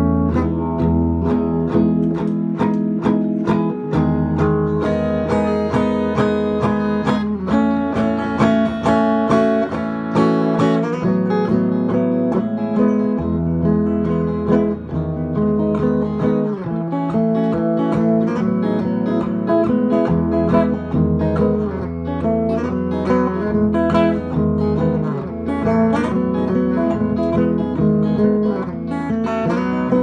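Custom Anu "Aza" electric guitar (flame maple over mahogany) played through a powered speaker: a loose jam of picked notes and chords over low sustained notes, with no break.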